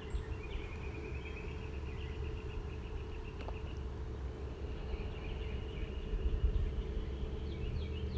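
Wind rumbling on the microphone, with a bird calling in long runs of rapid, evenly repeated high chirps that pause briefly about halfway through.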